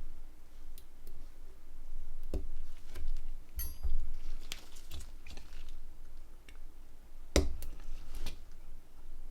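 Irregular light clicks and taps of small Nokia N91 phone parts and tools being handled on a work surface during reassembly, with a sharper knock about seven seconds in.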